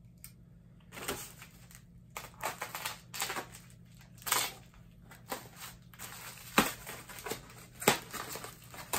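Packing material being pulled out of a shipping box: irregular rustling and crinkling, with scattered clicks and two sharper knocks late on.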